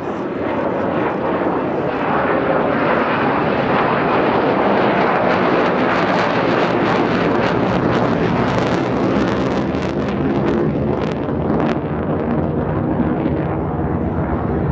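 Saab 37 Viggen's single Volvo RM8 turbofan heard in flight overhead: loud jet noise that builds over the first two seconds and then holds steady, with a ragged crackle for several seconds in the middle.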